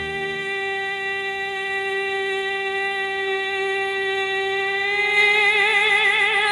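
Female singer holding one long note with little or no accompaniment, steady at first, then swelling louder with a widening vibrato about five seconds in.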